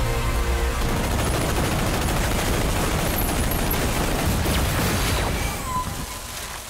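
Music gives way about a second in to a dense, rapid rattle of gunfire and booms, which thins out and fades near the end.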